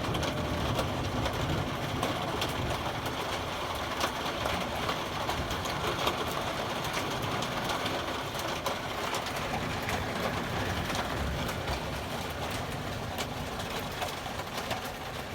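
Steady rain mixed with hail: an even hiss dotted with many small sharp ticks of hailstones striking, over a low rumble.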